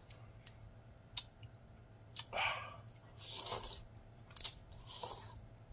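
Slurping and chewing a forkful of instant ramen noodles: three wet slurps about two and a half, three and a half and five seconds in, with a few sharp mouth or fork clicks between them.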